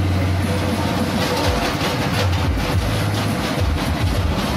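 Engine-driven coconut husk grinder (cocopeat and cocofiber machine) running loud while husks are fed in and shredded: a dense, irregular crackling rattle over a low engine hum that drops out now and then.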